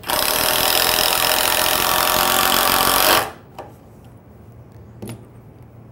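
A 12-volt cordless impact driver hammers continuously for about three seconds as it drives a long screw into hard maple, then stops abruptly. The impact mechanism works nonstop against the dense wood's resistance.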